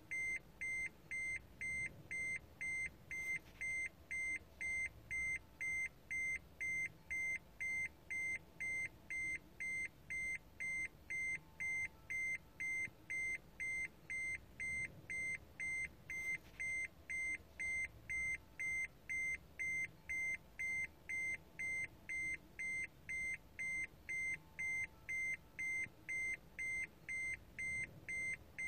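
Electronic beeper sounding a steady train of short, high-pitched beeps, one roughly every half second, all at the same pitch and loudness.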